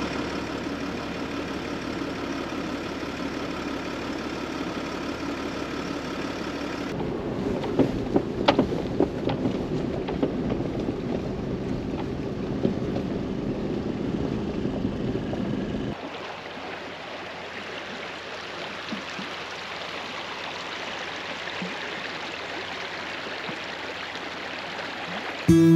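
A vehicle on the move: steady running and road noise, with scattered knocks and rattles in the middle. About sixteen seconds in it cuts abruptly to a quieter, even hiss.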